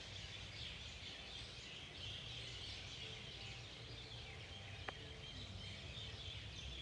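A dense chorus of many birds chirping and twittering together, with a low rumble underneath and a single sharp click about five seconds in.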